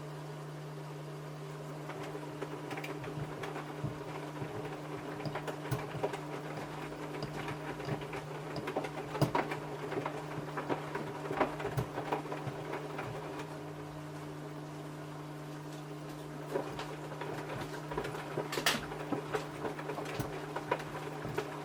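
Samsung washing machine running a wash with trainers in the drum: a steady motor hum under irregular knocks and clatters as the trainers thump around the drum, a few knocks louder than the rest.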